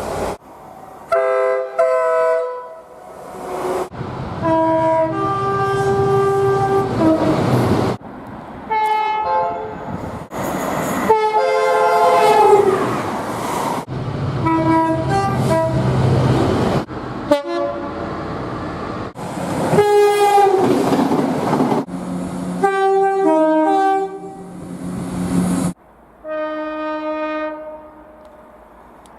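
Train horns from about ten different trains, cut back to back with sudden breaks: chords of two or more tones in short toots and longer held notes, some falling in pitch.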